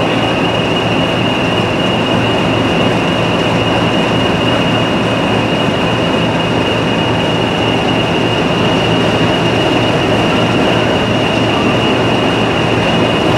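Class 40 diesel locomotive's English Electric 16-cylinder engine idling, with the steady high-pitched turbocharger whistle that gives the class its 'Whistler' nickname. A low engine rumble runs beneath it.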